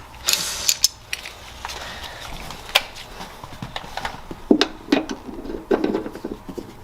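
Scattered sharp clicks and light knocks of hands working seatbelt hardware and bracket parts, with a brief rustle at the start.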